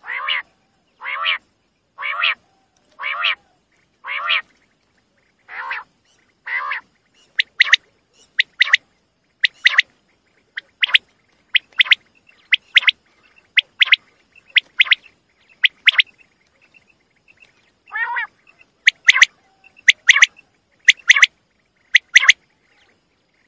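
Common quail calls, repeated with short silences between. For the first seven seconds or so they are lower, hoarse calls about once a second; after that come sharp, high, clipped notes, mostly in quick pairs, with one lower call again near the end.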